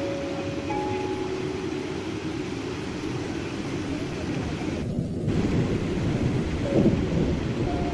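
Steady heavy-rain hiss over soft, sustained music notes, with a low rumble of thunder swelling up in the second half. The hiss cuts out for a split second just before the rumble.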